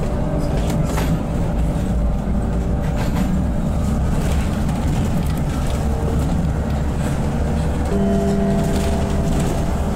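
Van Hool AG300T trolleybus running on its auxiliary diesel engine instead of the overhead wires, heard from inside the passenger cabin while driving: a steady low rumble with occasional light rattles, and a faint steady hum coming in about eight seconds in.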